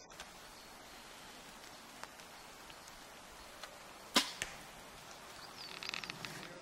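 A bow shot about four seconds in: one sharp crack as the string is released, with a second, fainter knock a quarter-second later, typical of the arrow striking a foam 3D target. A run of faint clicks follows near the end.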